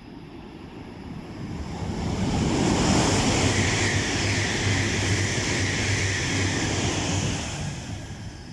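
E2 series Shinkansen passing through the station at speed without stopping: a rushing noise with a low rumble that builds over about two seconds, holds loud for about five, then fades away.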